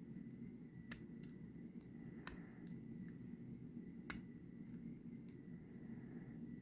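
Faint, irregular small sharp clicks of a lock pick and tension wrench working the pins inside a pin-tumbler lock, about seven in all, over a steady low hum.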